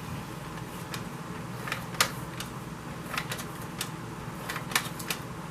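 Scattered light clicks and taps of paper and cardstock being handled and pressed down on a craft table, over a steady low background hum.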